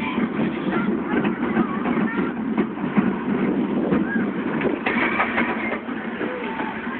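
Steel roller coaster train rattling and rumbling along its track, with riders' shrieks and voices over it; the noise eases a little near the end as the train runs into the station.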